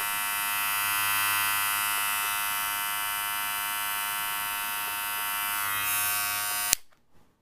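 Wahl Cordless Senior hair clipper running with a steady buzz, then switched off with a click near the end.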